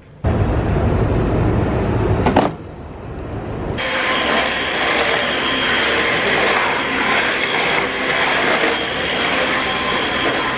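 A Dyson cordless stick vacuum running steadily with a high whine, starting about four seconds in. Before it, a loud low rushing noise lasts about two seconds and cuts off abruptly.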